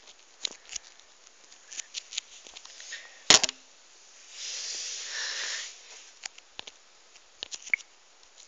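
Small clicks and taps of plastic toys being handled, with one sharp knock about a third of the way in and a rustling hiss of about a second and a half shortly after.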